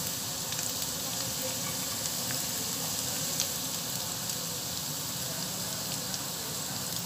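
Minced garlic sizzling in hot oil in a pan: a steady frying hiss with occasional small pops.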